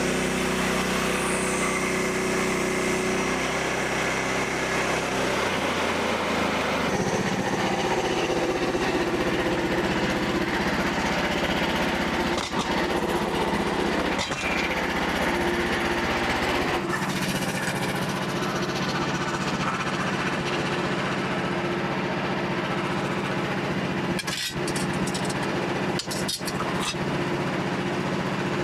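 Frontier OS27 portable bandsaw mill running steadily while sawing white oak, its small engine's pitch shifting a few times as the cut load changes.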